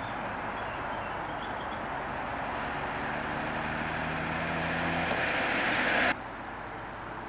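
A classic Mini's four-cylinder A-series engine running as the car drives up and passes close by, growing louder as it nears. It cuts off suddenly about six seconds in, leaving a quieter steady background hum.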